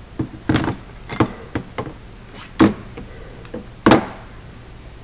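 A string of sharp knocks and clinks, about eight, as the blown-up pistons from a 7.3L diesel are handled and set down; the loudest come about two and a half and four seconds in.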